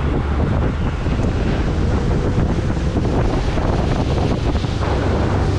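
Wind buffeting the microphone over the steady drone of a fishing boat's outboard motor as the boat runs across the lake.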